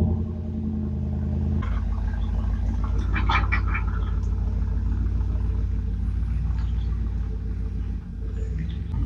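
Truck engine idling just after being started, steady and low, its sound shifting about a second and a half in. A few light clicks come about three seconds in.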